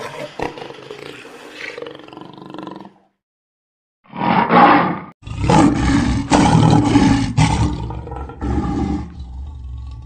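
Lion roaring in loud, deep calls from about four seconds in, after a quieter animal sound and a one-second silence.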